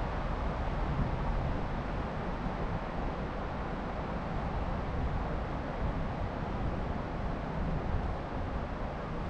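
Wind blowing across the camera microphone: a steady rushing noise, heaviest and most uneven at the low end, with no meows.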